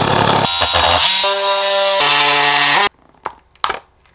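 Cordless oscillating multi-tool cutting into a lithium battery's plastic case, its pitch shifting as the blade bites. It stops about three seconds in, followed by two light knocks as the cut lid is pulled free.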